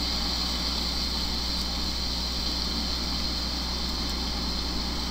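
Steady background hum and hiss of the narration's recording, with no other sound: a constant low hum with a hiss above it, unchanging throughout.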